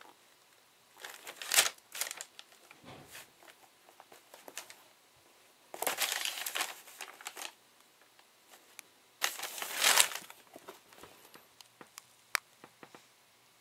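Paper lining of a shoebox crinkling as a pair of sneakers is handled on it, in three bursts of rustling with small clicks and taps between and after.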